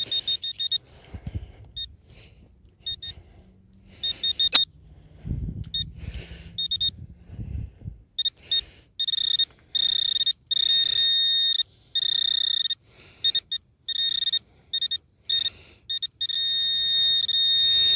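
Handheld pinpointer probe sounding its steady high alert tone as it nears metal in the dug hole: short beeps at first, then longer and almost continuous from about halfway through. A single sharp knock comes a few seconds in, followed by dull scraping and handling of soil.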